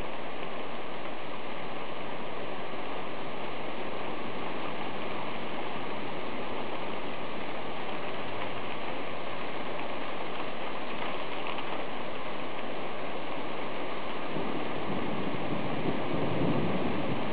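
Heavy rain falling steadily in a thunderstorm, a constant hiss. In the last few seconds a low rumble of thunder starts to build.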